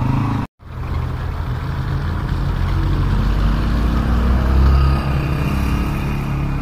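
A vehicle engine running with a steady low rumble amid street traffic noise, swelling a little near the end. The sound cuts out completely for a split second about half a second in.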